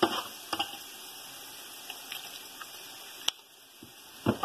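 Oil and masala sizzling faintly in the bottom of a hot metal cooking pot, a steady soft hiss, with a few light clicks and a couple of metal knocks against the pot near the end.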